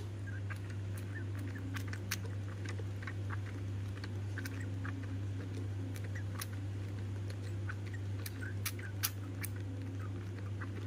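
Baby monkey sucking milk from a plastic feeding bottle: many small, irregular clicks from its mouth on the teat, over a steady low hum.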